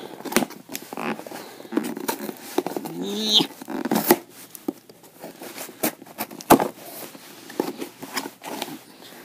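Cardboard shipping box sealed with packing tape being opened by hand: scraping, crinkling and irregular clicks as the tape is picked at, cut and pulled, with one sharp knock about six and a half seconds in.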